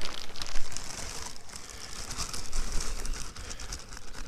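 Plastic bag of topsoil crinkling and rustling as it is lifted and tipped, with soil sliding out of it. The rustling is loudest near the start.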